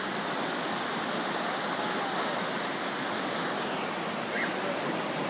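Whitewater rapids rushing in a steady, even roar.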